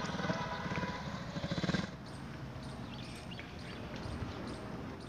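Small single-cylinder motorcycle running and coming closer, its engine growing louder before cutting off abruptly about two seconds in. After that, quiet outdoor background with faint, short bird chirps.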